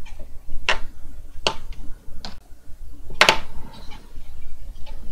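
A wide flat wash brush knocking against a watercolour palette while paint is mixed in its well: four short, sharp clicks about a second apart, the one near the end the loudest.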